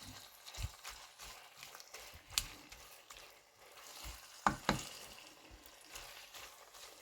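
Ground meat and onions frying in oil in a saucepan, sizzling faintly as they are stirred with a spoon. A few sharp knocks are heard, about two and a half seconds in and twice near four and a half seconds in.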